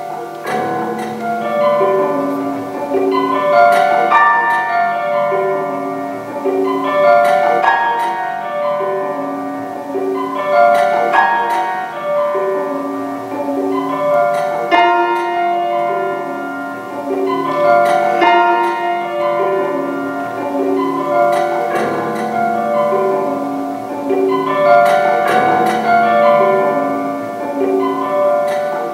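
Grand piano prepared with screws, bolts, nuts and rubber between its strings, played in a rhythmic passage that mixes ordinary piano tones with muted, percussive notes. A phrase returns about every three and a half seconds.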